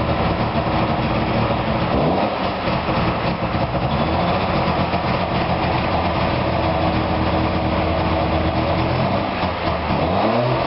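Puma GT's restored DKW-Vemag three-cylinder two-stroke engine running. It is revved briefly at the start, again about two seconds in and near the end, and holds a steady speed in between.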